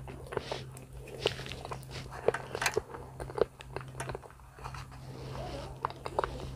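Close-miked chewing of soft banana: wet mouth clicks and smacks scattered irregularly, over a low steady hum.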